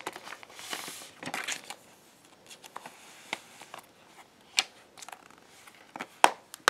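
Handling of a plastic Blu-ray case and its paper insert: scattered sharp plastic clicks and taps, with brief paper rustling about a second in and a louder click near the end.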